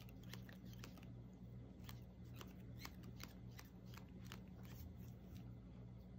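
Faint rustling and irregular light ticks of tulle netting and thread being handled while thread is wound tightly around the middle of a tulle bow, over a steady low hum.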